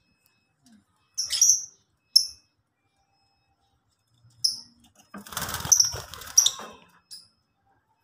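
Lovebirds giving short, shrill chirps, a few sharp calls spaced a second or two apart. About five seconds in comes a denser burst of rustling and fluttering, lasting under two seconds, with more shrill calls over it.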